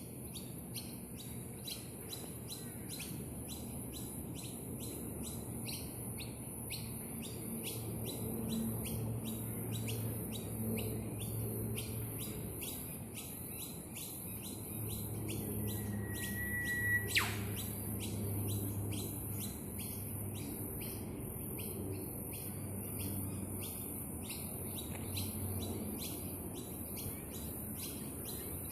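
Birds chirping in rapid, continuous short notes over a steady high hiss and a low rumble. About seventeen seconds in, one clear whistle holds a steady pitch for over a second, then drops sharply.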